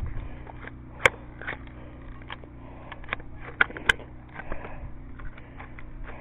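Scattered sharp clicks and snaps at irregular intervals over a low background rumble, with two louder cracks about a second in and just before four seconds.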